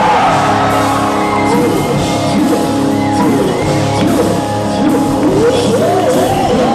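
Loud amplified music with a singing voice over steady held instrument notes, and some shouts.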